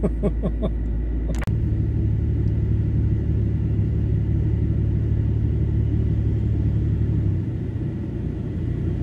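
Steady low rumble of a Nissan Y62 Patrol's V8 engine running, heard from inside the cabin, with a sharp click about a second and a half in.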